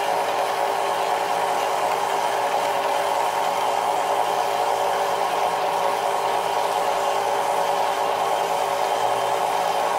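Horizontal bandsaw running with its variable-tooth blade cutting across the full 8-inch width of a flat 6061 aluminum plate under coolant and full hydraulic down feed: a steady, even machine hum with several held tones.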